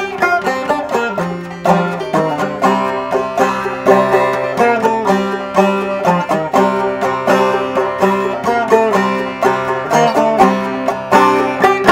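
Solo open-back banjo, built on a 1920s banjolin rim, played clawhammer (frailing) style in G modal tuning: a steady, driving run of plucked and brushed notes, several to the second, with the strings ringing over one another.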